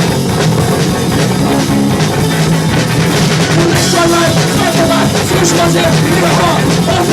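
Live rock band playing an instrumental passage: guitar chords, bass and a drum kit at a steady driving beat.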